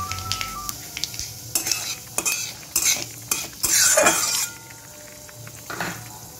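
A spatula scraping and stirring in a metal kadai where nigella seeds and dried red chillies are frying in hot oil, with a light sizzle. A run of scrapes builds to the loudest about four seconds in, then it goes quieter with one last scrape near the end. Background music fades out in the first second.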